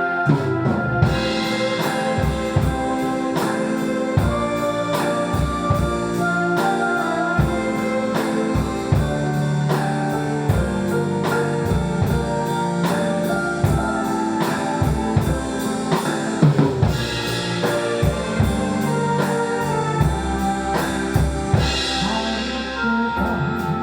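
Drum kit played along to a recorded backing track: a steady beat of kick, snare and cymbal hits over the song's melody and accompaniment.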